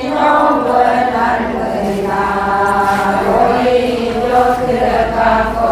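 Voices chanting on long held notes that shift slowly in pitch, with several voices overlapping.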